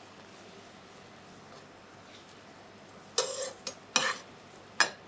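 Metal spoon stirring simmering cream sauce with onions in a nonstick frying pan: a low bubbling hiss, then four quick scrapes and knocks of the spoon against the pan from about three seconds in.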